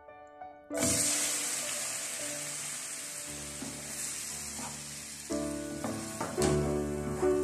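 Diced tomatoes hitting hot oil in a non-stick frying pan: a loud sizzle starts suddenly about a second in and slowly dies down as a wooden spatula stirs them.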